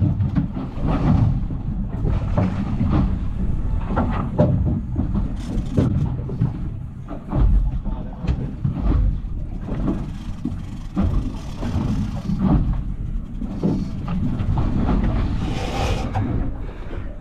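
Low rumble of a boat at sea, with wind and water noise and irregular knocks on the aluminium boat.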